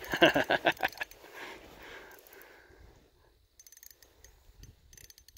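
Ultralight spinning reel ticking faintly in quick runs of rapid clicks during a fight with a hooked trout, after a short burst of voice at the start.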